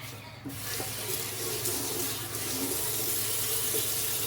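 Kitchen tap running steadily into a sink, turned on about half a second in and shut off at the end.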